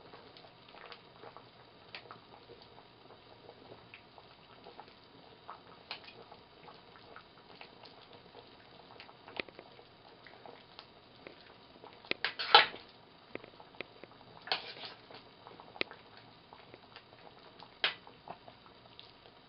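Soup with dumplings simmering in a stainless steel stockpot, with scattered small pops, while a metal spoon stirs in it and clinks against the pot, the loudest clatter about twelve seconds in.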